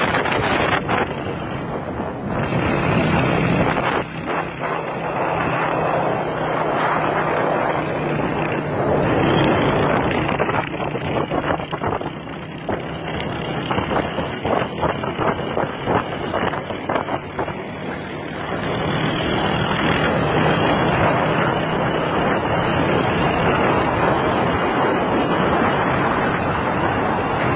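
Wind buffeting the microphone of a phone filming from a moving vehicle, with the steady drone of a motorcycle engine underneath.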